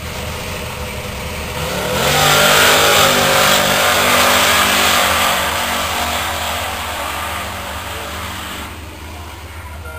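Street drag car launching hard off the starting line about a second and a half in, engine revs climbing at full throttle. The engine noise is loudest for a few seconds, then fades as the car pulls away down the strip.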